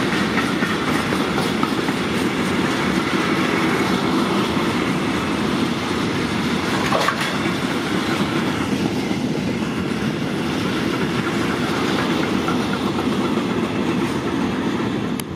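A long freight train of DB Cargo open wagons rolling past, a steady loud rumble of wheels on rail, with one brief sharper knock about seven seconds in.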